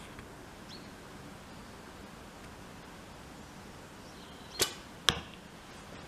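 An arrow shot from a recurve bow into an archery target boss: a sharp snap from the bow's release, then about half a second later a louder, sharper smack as the arrow strikes the target.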